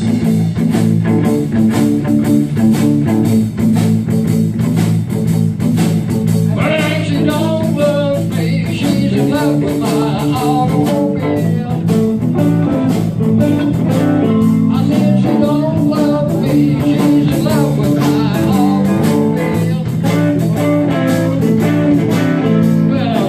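Live blues-rock band playing: electric guitars, bass and drums over a steady beat, with a lead part bending in pitch coming in about seven seconds in.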